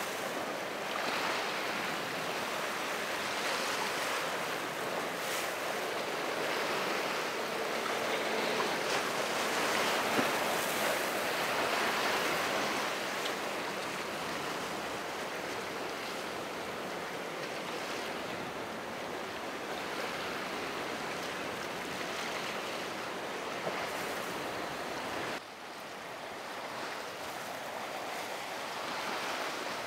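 Ocean waves washing and breaking with wind, swelling and easing in loudness; a brief sudden drop about twenty-five seconds in.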